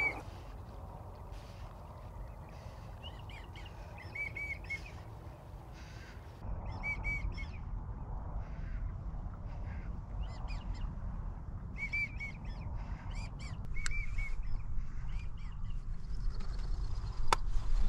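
American wigeon whistling: short two- and three-note whistles, repeated in clusters throughout. Underneath is a low rumble of wind on the microphone that grows louder about six seconds in, and there is a single sharp click near the end.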